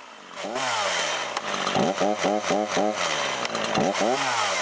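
Echo two-stroke chainsaw running, its engine speed rising and falling in quick, regular surges, about four a second.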